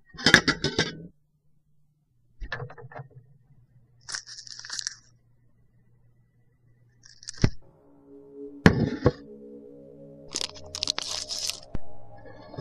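A series of sudden cracks and crashes, several of them sharp knocks, with a steady musical drone coming in about halfway through.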